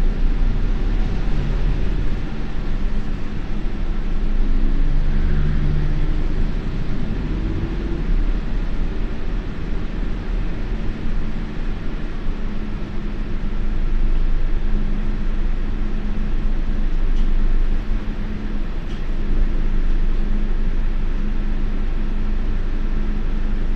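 Mitsubishi Fuso Aerostar non-step city bus under way, heard from inside the cabin: its diesel engine running, with a steady low road rumble.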